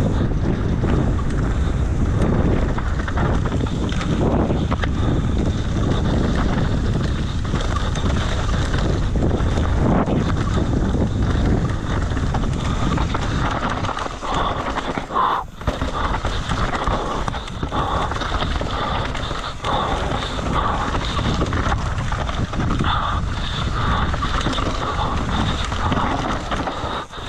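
Wind buffeting the microphone of a mountain bike rider moving at speed, with steady rough trail noise underneath. The rushing eases a little about halfway through.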